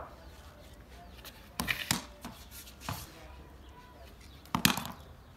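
Sharp wooden and hard knocks of a cricket ball bouncing on concrete and being struck by a bat, in two main clusters: about one and a half seconds in and again near the end, with a lighter knock in between.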